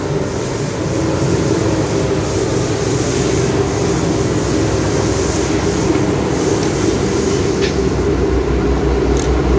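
Steady low mechanical rumble with no let-up, deepening into a low throb near the end, with a couple of light clicks over it.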